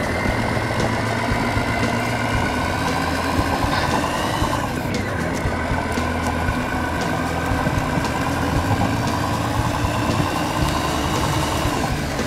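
RC truck sound module playing a recorded real heavy-truck diesel engine, running steadily at low revs through the model's small speaker. About four to five seconds in, a whine falls in pitch.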